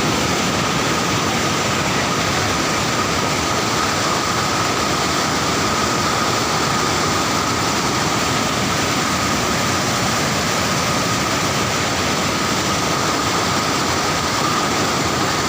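Waterfall swollen with rainwater: a loud, steady rush of falling water.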